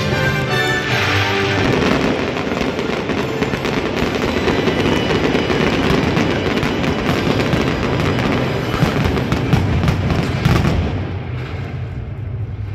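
Fireworks going off: a long, dense run of bangs and crackles that starts about a second in and dies down near the end, with music playing underneath.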